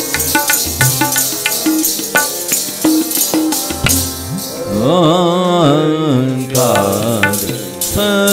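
Sikh devotional kirtan: harmoniums holding chords over a tabla beat, then a man's singing voice coming in about halfway through, breaking off briefly and resuming near the end.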